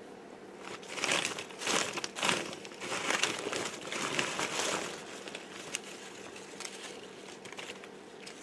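Bag of craft flowers crinkling and rustling as hands rummage through it, in irregular bursts that are loudest in the first half and then soften to lighter rustles.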